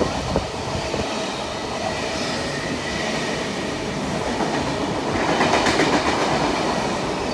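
NSW TrainLink V set double-deck intercity electric train passing through a station without stopping. The carriages run by close, with a few sharp clicks near the start and a swell in loudness about five seconds in.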